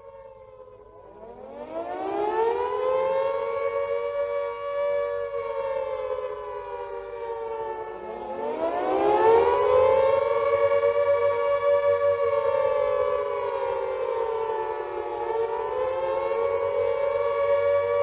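British WWII Carter air raid siren ("Moaning Minnie") sounding the rising-and-falling Attack Warning. Two close, clashing notes wind up from low about a second in, hold high, sag, then wind up again about eight seconds in, sag and climb once more.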